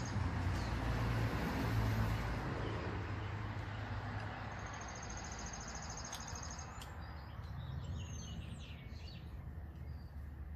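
A tobacco pipe being lit and puffed with a lighter: a steady hiss that fades over the first few seconds. Birds chirp several times later on, with an insect trill before them.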